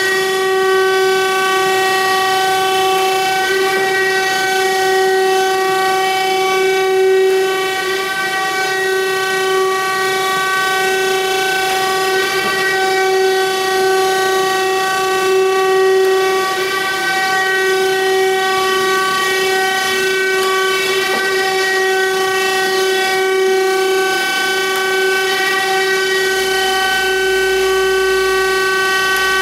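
Thompson 8CX 96x30 surface grinder running: a loud, steady whine with many overtones that holds its pitch throughout.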